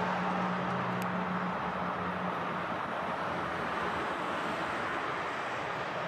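Steady noise of road traffic, with one vehicle's low engine hum fading out over the first two seconds or so.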